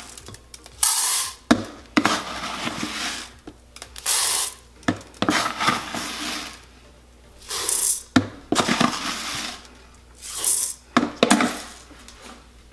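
Dry rice poured scoop by scoop into the nonstick inner pot of a rice cooker: a rushing hiss of grains with each pour, several times over, with sharp clicks and clinks of the scoop against the pot in between.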